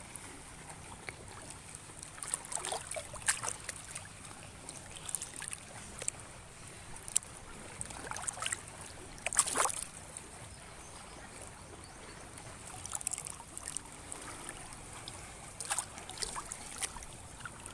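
Shallow sea water lapping and splashing against rocks at the shoreline. Small splashes come at irregular intervals over a steady low rush, and the loudest is about halfway through.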